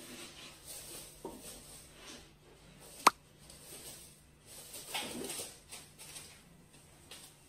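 A cat shuffling and pawing through spilled dry rice on a wooden floor, making light rustling and scattering, with one sharp click about three seconds in.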